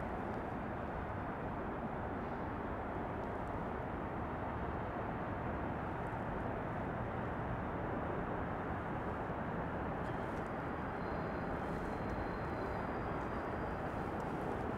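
Steady hum of distant city traffic, with a faint thin high tone briefly about two-thirds of the way through.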